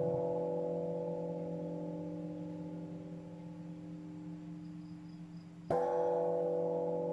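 Buddhist bowl bell ringing with several steady tones, slowly dying away, then struck once more near the end and ringing on.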